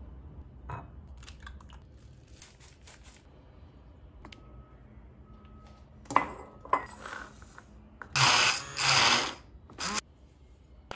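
Pancake batter ingredients being added to a glass mixing bowl: light clinks of spoons and a ceramic cup against the glass. Two loud, half-second bursts of rustling noise come about two-thirds of the way in.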